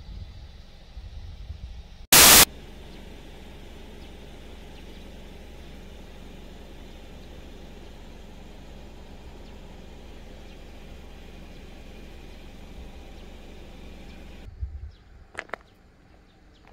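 Low rumbling at first, then a very loud, brief burst of noise about two seconds in, followed by a steady, even hiss. The hiss cuts off suddenly near the end, and a few faint clicks follow.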